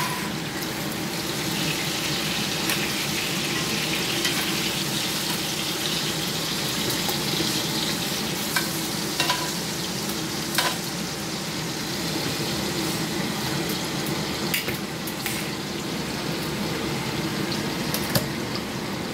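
Hot fat and steak juices sizzling steadily in a cast-iron skillet on the burner, just after the steaks have been lifted out, with a few sharp pops and clicks here and there.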